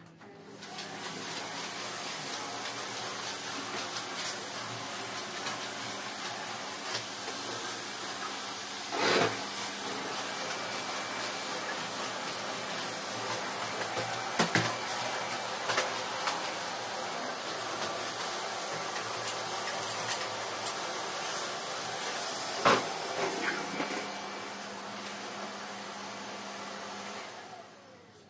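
Canister vacuum cleaner running steadily as a floor is vacuumed. It starts about half a second in and stops shortly before the end, with a few sharp knocks along the way.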